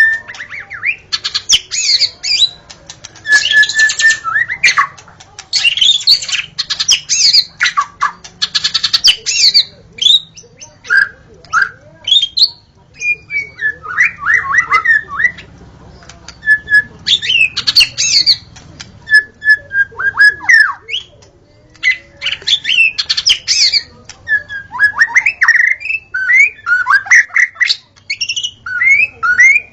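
White-rumped shama in a fast, varied song of clear whistles, quick falling trills and harsh scratchy rattles, with brief pauses between phrases. It is the excited song used as a lure to set other shamas singing.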